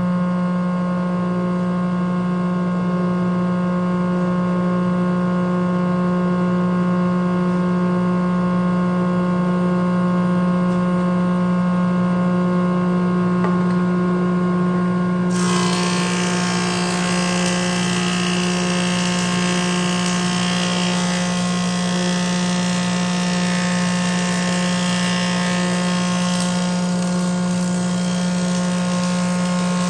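Oliver 299-D 24-inch planer running, its 5-horsepower direct-drive main motor and four-knife straight cutterhead giving a steady hum. About halfway through, a pine board reaches the cutterhead, and a loud hissing cutting noise of the knives planing the wood starts suddenly on top of the hum and carries on.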